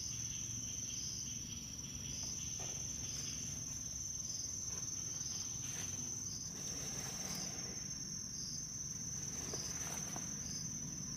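Insects trilling: a steady high-pitched chirr that swells about once a second, with a few faint knocks now and then.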